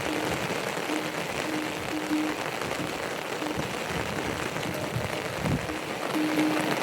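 Steady rain falling as an even hiss, with a low steady hum that cuts in and out several times.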